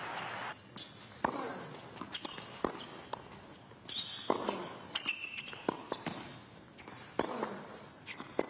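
Tennis rally on a hard court: sharp knocks of the ball off the rackets and the court, irregular, roughly one every half second, with a few short high squeaks in between.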